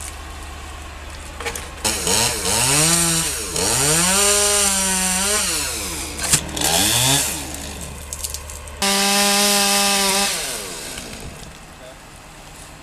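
Chainsaw cutting a tree limb, its engine speed rising and falling several times, then held at full speed for about a second and a half before dropping back toward idle.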